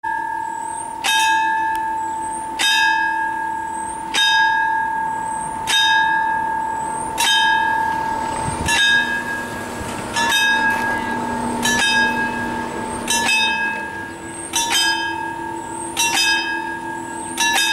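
Railway level-crossing warning bell ringing, one sharp stroke about every second and a half, as the crossing's barriers begin to lower. The bell warns that a train is approaching.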